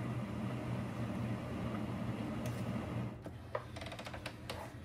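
Countertop hot-water dispenser running with a steady mechanical hum as it pours hot water into an instant ramen cup, cutting off about three seconds in. A few light clicks and taps follow as the cup's paper lid is pressed shut.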